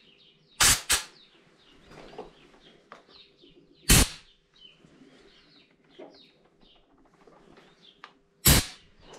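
Four brief, loud bursts of noise, with faint bird chirps in the background between them.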